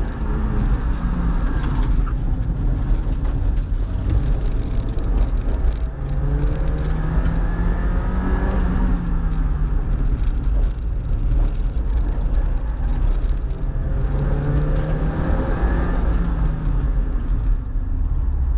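Mazda Miata's four-cylinder engine revving up and easing off through an autocross course, its pitch climbing and falling with each straight and turn, over a steady low rumble of road and wind noise, heard from inside the cabin.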